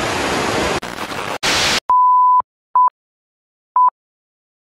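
Rushing river and wind on the microphone, cut off under a second in; a short burst of static hiss follows. Then an electronic beep at one steady pitch: one long tone of about half a second, then short beeps about once a second, with silence between.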